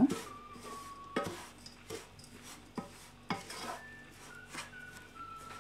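Wooden spatula stirring a dry, crumbly masala mixture in a saucepan, with irregular scrapes and light knocks of wood against the pan.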